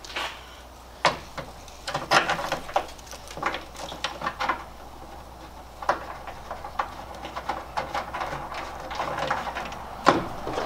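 Irregular clicks, taps and light knocks of hand work on a pickup tailgate as the tailgate latch is reinstalled, with parts and hardware being handled and fitted.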